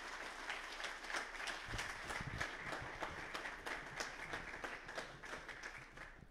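Audience applauding, dying away near the end, with a few low bumps in the middle.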